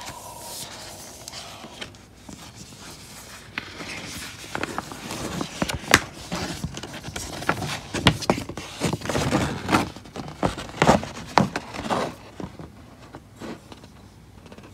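A large folded paper map being unfolded and spread flat: paper rustling, with a dense run of sharp crinkles and crackles through the middle that settles down near the end.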